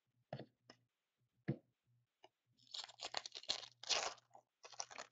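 A few light taps of cards on a tabletop, then the plastic wrapper of a trading card pack being torn open and crinkled in several spells from about halfway in.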